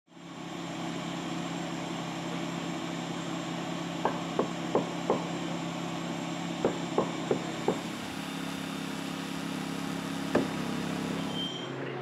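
Vacuum machine running steadily while it sucks hornets out of a nest in a tree through a hose. Two quick series of four sharp knocks come in the middle, and one more near the end. The running sound changes abruptly shortly before the end.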